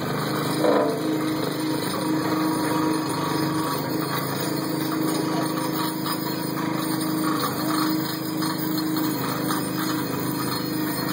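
Engine of an excavator fitted with a large auger drill, running steadily with a constant hum.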